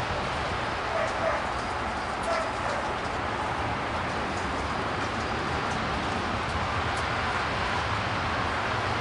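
Steady outdoor noise with a few short, faint animal calls, about one second in and again just after two seconds.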